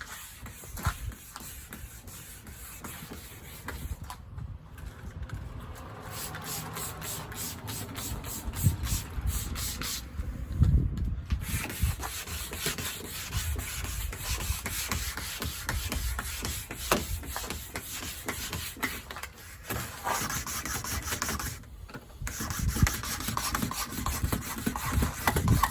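Wet sanding of rough spray-can primer on a car body with 1000-grit paper: a gritty rubbing, stroke after stroke, with a few brief pauses. The grittiness is the roughness of the primer, which is meant to fade as finer grits are used.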